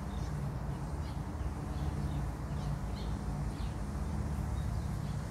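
A few short, faint bird chirps about halfway through, over a steady low background hum.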